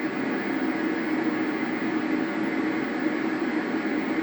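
Steady background hum and hiss with a faint low tone running through it, unchanging throughout.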